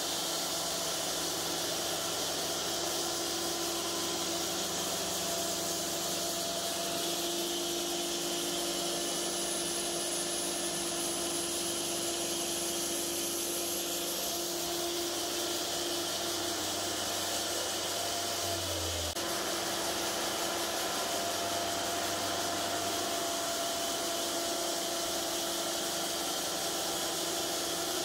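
Cook's AC36 band sawmill running steadily as its engine-driven head and band blade travel the length of a cant sawing boards, with a brief low thud about two-thirds of the way in.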